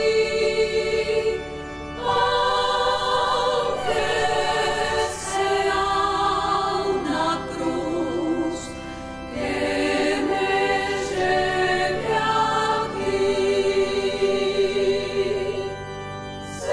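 A nuns' choir singing a slow, hymn-like piece: long held notes sung in phrases, with short pauses between them.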